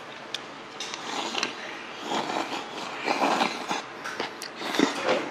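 Close-up eating sounds: slurping and chewing food taken from a small bowl with a spoon, in irregular bursts, with a few light clicks.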